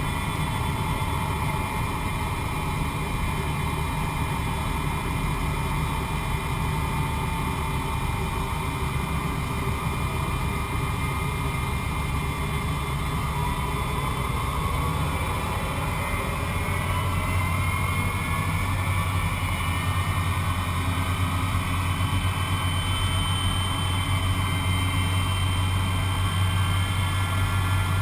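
Avro Vulcan's Rolls-Royce Olympus turbojets heard from inside the aircraft: a steady engine rumble with whines that rise in pitch from about halfway, as the low rumble grows stronger and a little louder.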